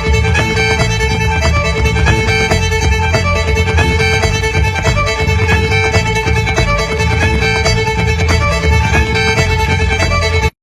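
Loud fiddle music with a steady beat, cutting off abruptly near the end.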